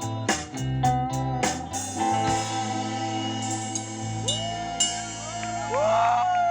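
Band music with guitar and drums. Evenly spaced hits for about two seconds, then chords left ringing, with bending guitar notes that rise and fall near the end.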